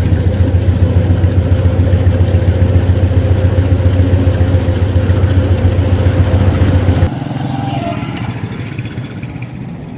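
A large engine running steadily with a low, fast, even pulse. About seven seconds in it cuts off abruptly, leaving quieter background noise.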